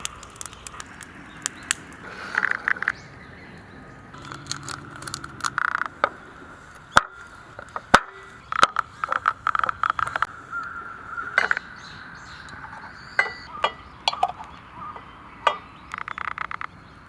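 Campfire cooking: a string of sharp clicks, taps and clinks from cookware and utensils being handled, over a steady hiss, with two louder knocks about halfway through.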